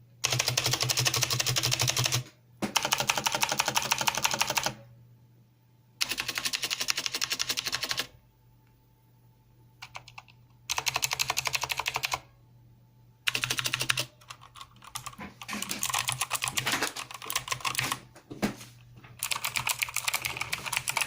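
Rapid typing on a mechanical keyboard with clicky blue switches, in fast bursts of about two seconds separated by short pauses, then slower, irregular keystrokes over the last several seconds.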